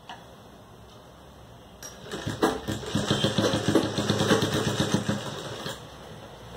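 Sewing machine stitching through cotton mask fabric in a fast, even run of strokes, starting about two seconds in and stopping after about three seconds.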